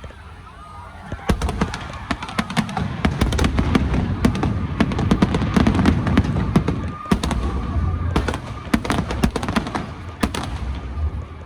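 Aerial fireworks going off in quick succession: a crowd of sharp bangs and crackles over a low booming rumble, starting about a second in and keeping up densely, thinning slightly near the end.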